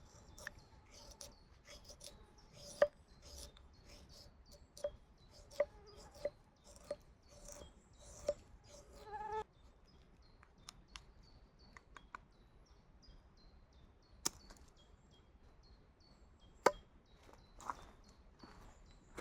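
Scattered sharp knocks and clicks, frequent over the first half and sparser after, over faint repeated high bird chirps.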